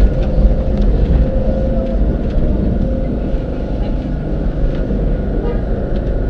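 Lisbon tram 28, a vintage electric tram, running slowly, heard from inside the car: a loud, steady low rumble of wheels and running gear on the rails, with faint steady whining tones above it.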